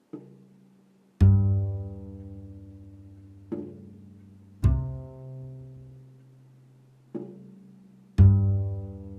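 Slow music of single low plucked string notes, six in all, each struck sharply and left to ring and fade; the two deepest and loudest come about a second in and near the end.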